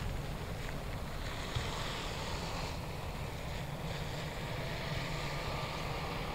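Wind rumbling on the microphone, with the faint distant rush of a jet airliner on final approach.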